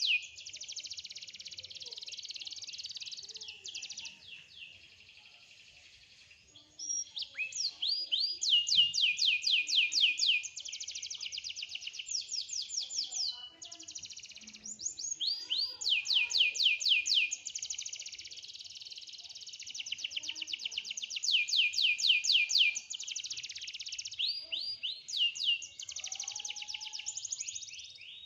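Domestic canary singing a long, continuous song of rapid trills: runs of quickly repeated sweeping high notes, broken by brief pauses, with a quieter passage about four to seven seconds in.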